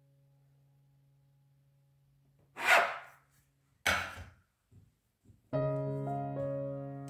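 Large kitchen knife cutting down through soft bread dough and knocking twice on a wooden tabletop, about a second apart, followed by a few faint taps. Piano music comes in near the end.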